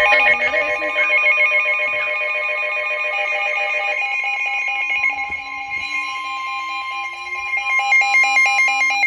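Emergency Alert System attention signal: a steady two-tone alarm held for several seconds, mixed with rapidly alternating higher tones. It announces a Special Marine Warning broadcast.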